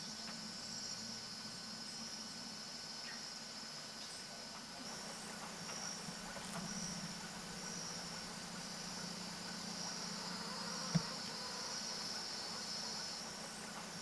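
Insects chirping in a steady run of short high chirps, about one a second, with a high steady hiss joining about five seconds in and a low hum underneath. A single short click about eleven seconds in is the loudest moment.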